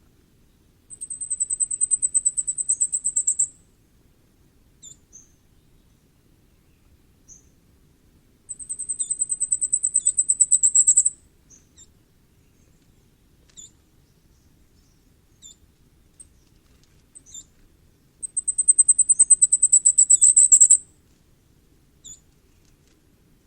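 Common firecrest singing three times: each song is a very high, rapid string of thin notes lasting about two and a half seconds, growing louder and ending in a short flourish. Faint single high notes come between the songs.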